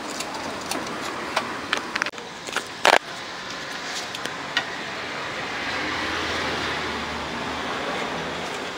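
Clicks and knocks from hands working on the wiring and parts of an opened power amplifier, with one loud sharp click just before three seconds in. After it comes a steady rushing noise that swells a little and then eases.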